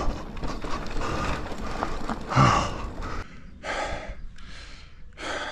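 A man out of breath after a hard ride, letting out a loud sigh-like exhale about two and a half seconds in, then panting heavily, about one breath every 0.7 seconds. A rushing noise fills the first three seconds and fades as the panting starts.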